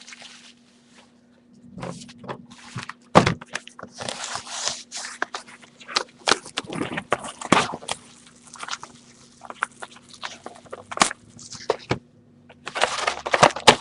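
Handling noise from a trading-card hobby box and its packs: irregular rustles, scrapes and sharp taps, with short pauses, over a faint steady hum.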